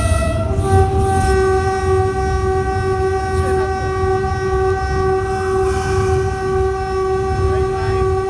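RGE-20 diesel locomotive's horn sounding without a break, dropping from a higher note to a lower one about half a second in and then held, over the low rumble of the train running.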